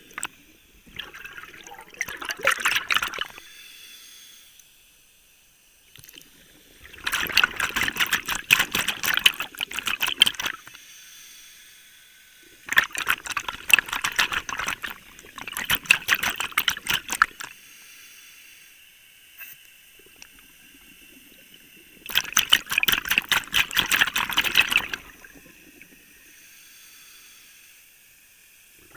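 Scuba diver breathing underwater through a regulator: five rushes of exhaled bubbles, each two to four seconds long, with a quieter steady hiss of inhaling in between.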